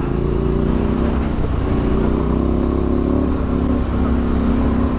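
Triumph Scrambler's parallel-twin engine, fitted with a Vance & Hines exhaust, running steadily under throttle while riding over loose gravel.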